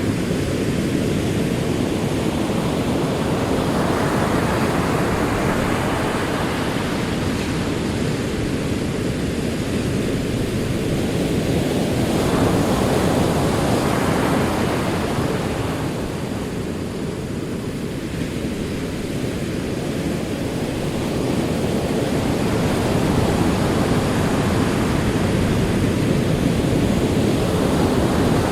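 Ocean waves rolling onto a shore in a continuous wash of surf, swelling and ebbing every few seconds.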